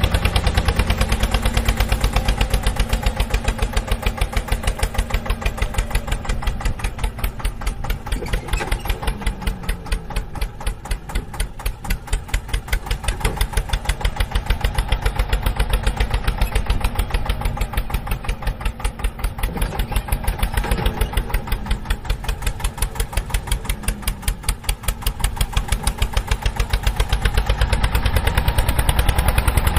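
Diesel tractor engine running with a rapid, even knocking beat that dips a little in loudness in the middle and rises again near the end.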